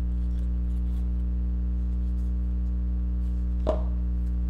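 Steady low electrical hum with several evenly spaced overtones, unchanging throughout, with one sharp click a little past three and a half seconds in.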